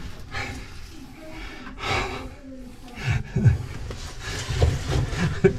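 A caver panting and breathing hard while squeezing through a tight cave passage, with scraping and low bumps of body and gear against the rock, busiest from about three seconds in.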